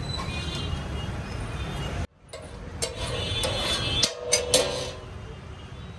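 Steel spatula scraping and clinking on a large flat iron tawa, with a few sharp metallic clicks in the second half. Underneath is a steady low street-traffic rumble, which drops out briefly about two seconds in.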